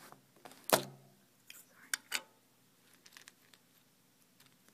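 Handling a small container of toothpicks: one sharp click about three quarters of a second in, three lighter clicks over the next second and a half, then faint small ticks.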